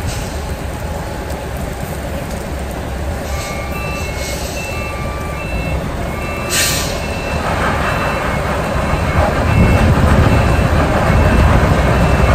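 Heavy diesel truck reversing a trailer up a wet slope: the engine runs steadily, then grows louder from about halfway as it pulls hard under load, while the reversing beeper sounds about every 0.7 s from a few seconds in. A short hiss of air comes near the middle, and rain hisses underneath throughout.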